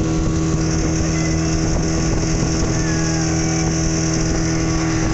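Speedboat engine running at a steady cruising speed, a constant drone, with the rush of water and wind over the hull.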